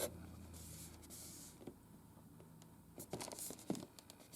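Faint handling noise from a cardboard figure box being turned in the hands. A soft brushing rustle comes first, then a few light taps, and a cluster of small knocks about three seconds in.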